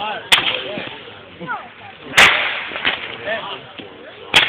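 Consumer firework tanks firing: three sharp bangs about two seconds apart, the middle one the loudest.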